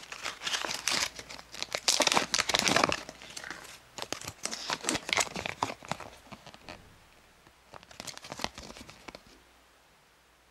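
Thin plastic wrapper of a Kinder Surprise toy being crinkled and pulled open, then a folded paper instruction leaflet being unfolded and flattened. The crinkling is dense at first, turns to scattered crackles, and dies away near the end.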